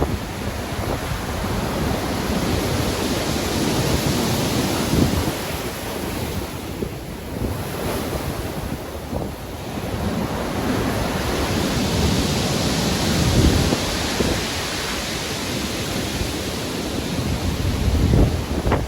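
Stormy sea: heavy waves surging and breaking, with wind buffeting the microphone. The surf eases briefly in the middle and then builds again.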